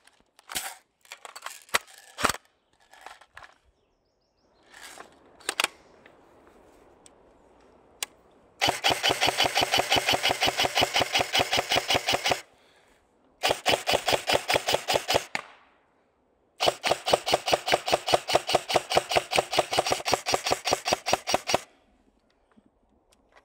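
Airsoft rifle firing three long full-auto bursts, a rapid even rattle of shots, the last lasting about five seconds, after a few single sharp clicks in the opening seconds.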